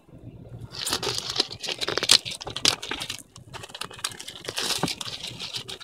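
Packaging being crinkled and torn open by hand in quick, irregular bursts with sharp crackles, starting about a second in: a boxed GPS navigator being unwrapped.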